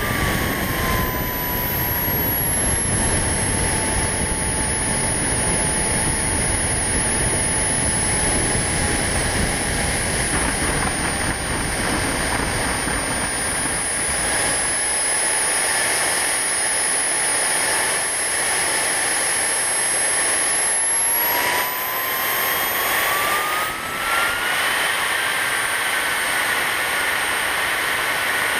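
Small RC model airplane's motor running with a thin steady tone that drops in pitch at the start as it throttles back, holds, then climbs again about three-quarters of the way through. Heavy wind rush on the onboard camera's microphone covers it until about halfway, then falls away as the plane comes down.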